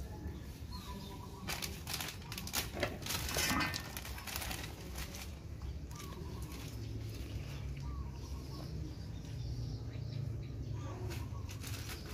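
Thin plastic bag crinkling and rustling in the hands as white seasoning is poured from it into a wooden mortar. The crackle is loudest about two to four seconds in and comes and goes in bursts after that.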